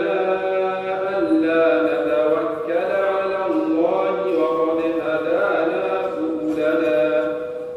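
A young man's voice reciting the Quran in the melodic, chanted style of tajweed, through a microphone: one long phrase of drawn-out, held notes that slides between pitches and tails off near the end.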